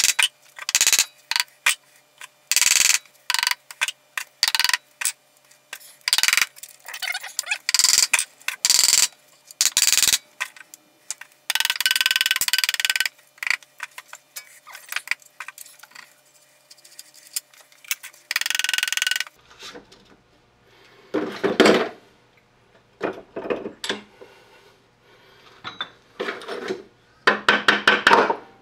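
Metal clinks and scrapes from the steel spindle parts of a Hendey cone head lathe as the lock collar is backed off and the parts are worked along the spindle by hand. There is a fast run of sharp clinks, with longer scrapes around the middle. In the last third the knocks are duller and a low hum joins in.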